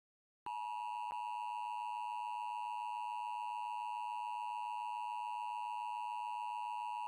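Emergency Alert System attention signal: a steady two-tone alert tone that comes in about half a second in and holds unchanged, announcing an incoming emergency alert. A faint click is heard about a second in.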